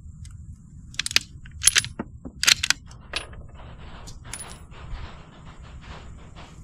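Rifle being handled between shots: a run of sharp metallic clicks and clinks, a few with a short high ring, bunched about a second in and again about two and a half seconds in, then lighter ticks.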